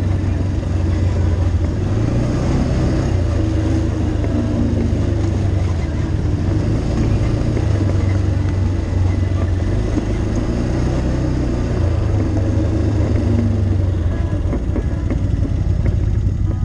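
ATV engine running steadily while riding a rough dirt trail, a low drone that rises and falls a little with the throttle.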